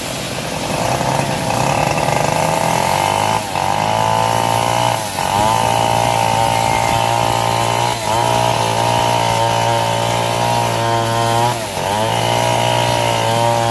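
Home-built bandsaw mill sawing a teak log: the motor runs steadily under load with the blade whining through the wood. It picks up about a second in and dips briefly four times as the cut bogs it down.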